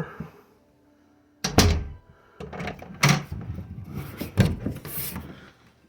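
Door fitted with a Universal Hardware door closer being handled: a sharp thump about a second and a half in, then a stretch of clicks and rattles of the door and closer hardware, with another low thump about four and a half seconds in.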